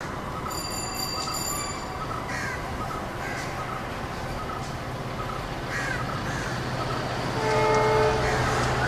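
Drone of a WDP4 (EMD GT46PAC) diesel locomotive's two-stroke V16 engine, growing louder as it approaches hauling the train, with birds calling now and then. About seven and a half seconds in, a short horn blast is the loudest sound.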